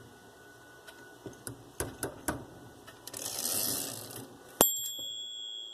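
Olympia SM3 manual typewriter mechanism clicking and rattling a few times, with a short rustle. Then its carriage bell is struck once, about three-quarters of the way in, and keeps ringing with a clear, steady tone.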